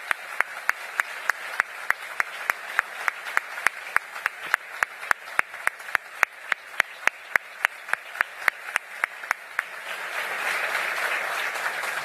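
Applause: a man's hand claps close to a podium microphone, sharp and regular at about four a second, over a hall audience clapping. Near the end his single claps stop and the audience applause swells.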